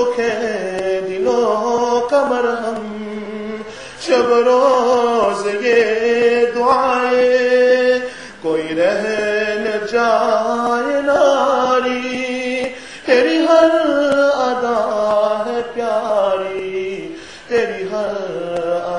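A man singing an Urdu naat, a devotional poem in praise of the Prophet, in long melodic phrases with a short break for breath about every four seconds.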